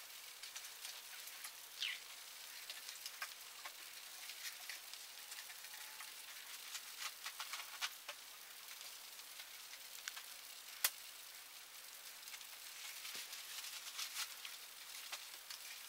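Faint pencil scratching on paper as a child writes by hand, made of many small scratches and taps, with one sharper click about two-thirds of the way through.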